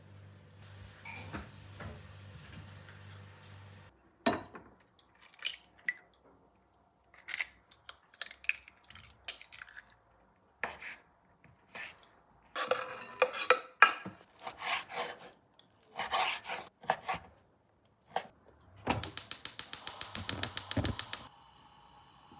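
Dishes and cutlery clattering: a low hum and hiss for the first few seconds, then scattered clinks and knocks of crockery and utensils, then a quick run of even clinks, about five a second, for a couple of seconds near the end.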